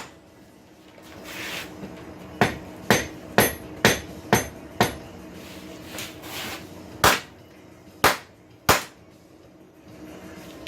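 Hammer blows on the hot steel of a forged rasp against the anvil while flattening and bending it: a run of about six strikes at roughly two a second, then three more spaced blows near the end.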